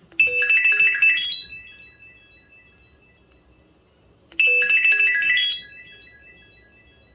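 Samsung Replenish (SPH-M580) phone ringtone: a short electronic phrase of quick rising notes whose last notes repeat and fade away like an echo. The phrase plays twice, the second time about four and a half seconds in.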